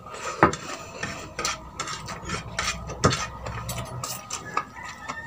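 Eating at the table: a fork clicking against plates and plastic bowls in scattered sharp clicks, with chewing of boiled sweet potato tops.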